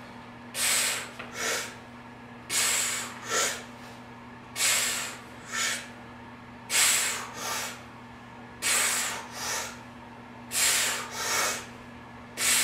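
Hard breaths through the nose, one resistance band curl rep at a time: a pair of hissing breaths, a longer one then a shorter one, about every two seconds. A faint steady low hum underneath.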